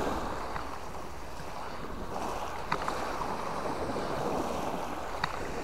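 Small sea waves breaking and washing up a pebble beach, a steady hiss of surf. Two faint clicks stand out, one a little before the middle and one near the end.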